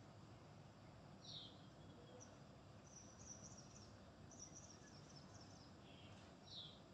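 Faint small birds chirping over a low steady background hum: a short falling chirp about a second in and again near the end, with quick twittering in between.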